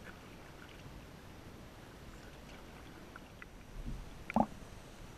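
Faint, muffled water sounds heard through a waterproof action-camera housing on the water, then a few sharp knocks and clicks near the end, the loudest about four and a half seconds in.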